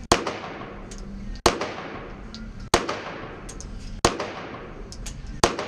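Five pistol shots fired one after another at an even pace, about 1.3 s apart, from a compact semi-automatic handgun. Each shot rings on in the indoor range. Fainter shots from other lanes fall between them.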